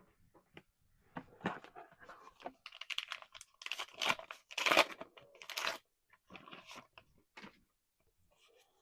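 A trading-card booster pack wrapper being torn open and crinkled: a run of irregular crackling tears and rustles lasting several seconds, loudest in the middle.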